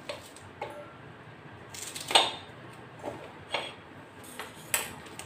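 Kitchen handling at a stainless steel mixer-grinder jar: a handful of separate light clinks and knocks, the loudest about two seconds in.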